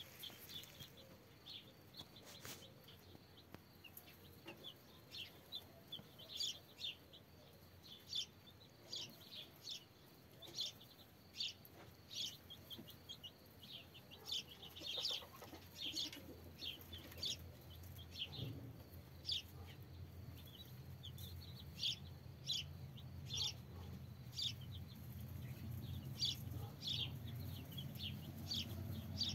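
Day-old chicks peeping: many short, high peeps scattered irregularly, several a second at times.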